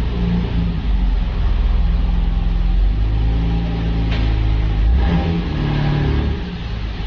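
Nissan Skyline R34 GT-R M-Spec Nür's 2.6-litre twin-turbo RB26DETT inline-six running at low revs as the car moves slowly, the revs rising and falling with light throttle. Two brief sharp clicks come about four and five seconds in.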